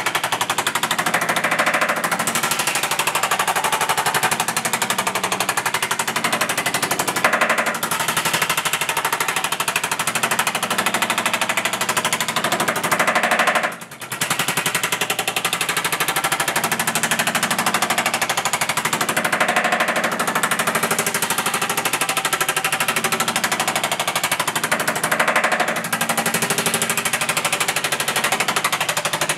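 Power hammer pounding an 18-gauge sheet-metal panel in a fast, continuous rattle of strokes as the metal is shrunk, with one short break about halfway through.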